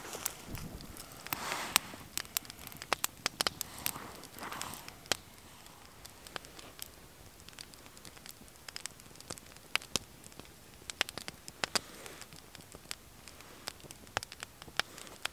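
Small wood fire crackling, with sharp, irregular pops and snaps that come thickest in the first few seconds and again in a cluster near the end.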